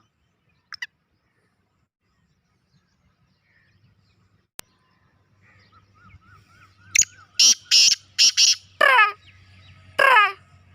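Black francolin calling: after a quiet stretch, a run of loud, harsh notes that fall in pitch, in quick succession from about seven seconds in. Fainter small-bird chirps can be heard just before it.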